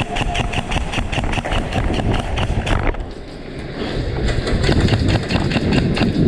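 Airsoft gun firing in a rapid, evenly spaced string of about seven shots a second, stopping about three seconds in, followed by a louder, rough rumbling noise that builds toward the end.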